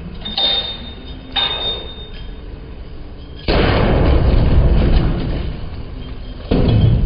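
A 50 kg log on cables strikes a glass flood-barrier panel with a loud bang about three and a half seconds in, followed by splashing water that dies away over a couple of seconds. A second bang comes near the end. Before that there are two lighter knocks with a thin high squeal.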